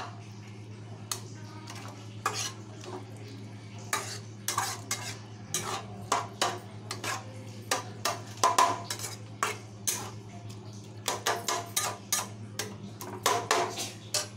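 Metal spatula scraping and clinking against a kadai as a watery onion-tomato masala is stirred, in many irregular strokes over a steady low hum.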